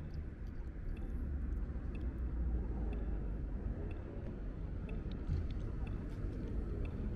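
City street ambience: a steady low rumble with no clear single event, with a few faint light ticks scattered through it.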